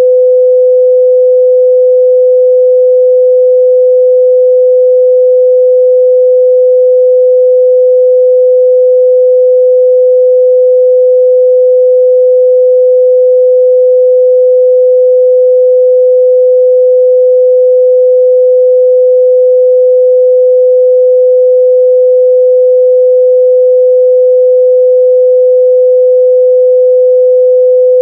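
Steady 505 Hz sine-wave test tone, a single pure pitch held at constant loudness.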